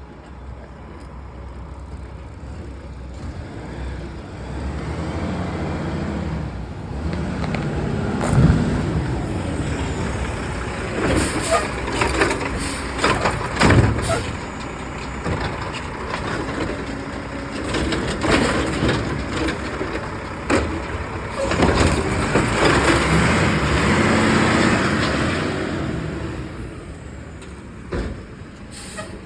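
Garbage truck working at the curb: its engine revving up and down, with a few sharp clanks and bursts of air hiss.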